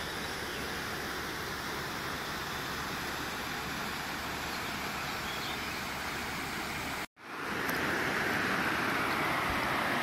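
Steady rushing of river water pouring over a low spillway. About seven seconds in the sound cuts out for a moment and comes back as a louder, steady rush of wind and water.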